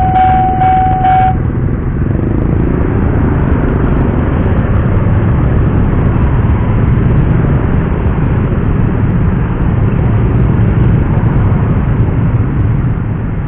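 A level-crossing warning alarm, a steady tone with a pulsing ring about two or three times a second, cuts off about a second in. Then the engines of a crowd of motorcycles run and pull away in a steady low rumble as they cross the tracks.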